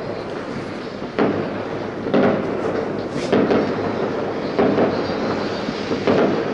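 Fireworks salute shells fired from salute vehicles bursting: a series of about five booms, roughly one a second, each trailing off in a long echo.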